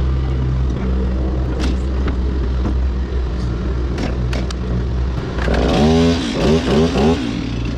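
Heavy diesel construction machinery running steadily, with a few sharp metallic knocks. About five and a half seconds in, a louder burst of hiss with a wavering, warbling pitch rises over the engine for under two seconds.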